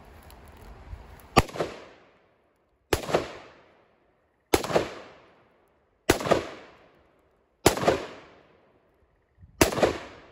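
AR-15 rifle fired six times in slow, steady semi-automatic fire, shots about one and a half to two seconds apart, each followed by a short echoing tail.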